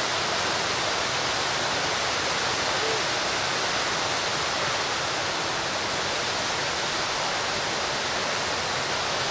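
Fountain water pouring over the rim of a large raised bowl and splashing into the basin below: a steady, even rush of water.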